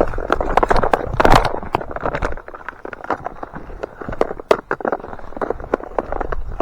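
Footsteps moving through dry ground cover, with rapid crackling and rustling that is densest in the first two seconds and then thins to scattered crunches.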